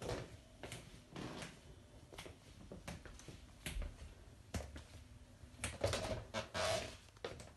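Footsteps on a wooden floor with irregular knocks and clicks, and a louder cluster of knocks and rustling near the end.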